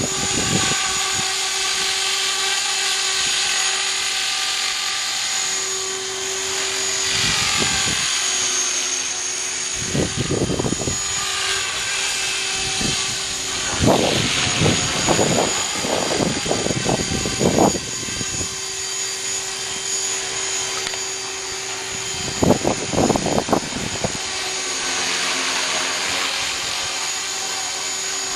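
Align T-REX 450SE v2 electric RC helicopter flying, its motor and drivetrain giving a steady high whine over a lower steady tone. Several times the whine is broken by loud bursts of rushing noise, most of them between about fourteen and eighteen seconds in and again a little later.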